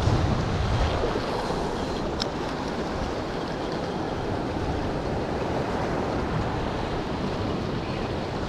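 Ocean surf washing steadily over shoreline rocks, with wind buffeting the microphone.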